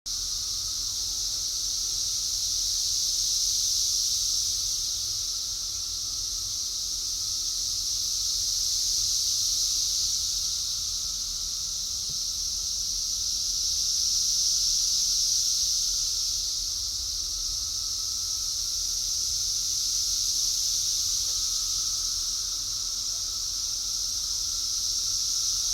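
A dense chorus of cicadas singing: a continuous high-pitched drone that swells and eases in slow waves about every five seconds, with a fainter lower drone beneath it.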